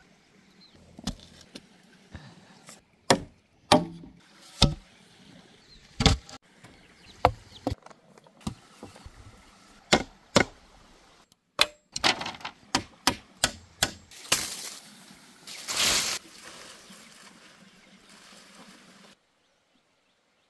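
Claw hammer striking a wooden pole against a bamboo post: a long series of sharp knocks at uneven spacing, some in quick pairs, with a longer rough noise of about a second and a half near the end.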